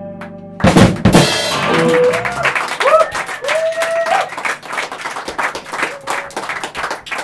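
A live rock band ends a song: a fading guitar chord, then a final crash of drums and guitars about half a second in. After that comes irregular clapping and a few rising whoops from a small crowd.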